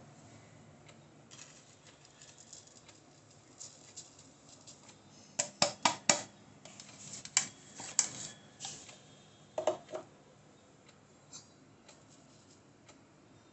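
Kalita Wave dripper with its paper filter being lifted and set back on its glass server: a run of sharp clicks and light clinks. They are thickest about five to six seconds in, with more around eight and ten seconds.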